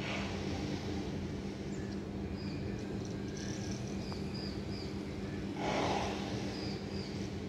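City ambience: a steady low hum of distant traffic and machinery, with a constant low drone underneath. Short high chirps come now and then, and a brief louder rush of noise comes about six seconds in.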